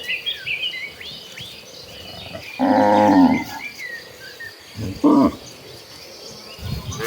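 Cattle mooing: one long moo about two and a half seconds in and a short moo around five seconds, with small birds chirping in the first couple of seconds. Another moo begins at the very end.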